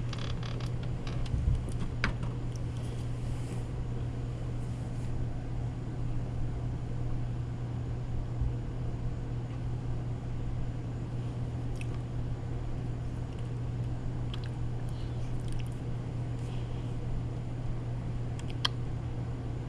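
A steady low hum with a few faint, brief clicks scattered through it.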